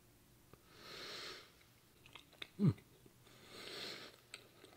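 A person chewing a mouthful of ravioli with faint mouth clicks, and breathing out twice, long and soft, through the nose. A short vocal sound falling in pitch comes about two and a half seconds in.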